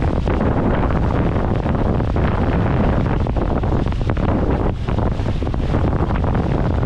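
Wind buffeting the microphone aboard a sailing boat under way: a loud, steady rushing noise, strongest in the low end.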